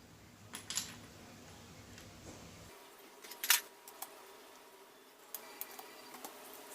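Scattered light metallic clicks and knocks of small tools and engine parts being handled during engine disassembly, the loudest clink about halfway through.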